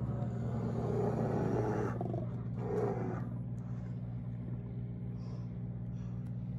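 A steady low mechanical hum, with a louder, wavering sound over the first three seconds that then fades.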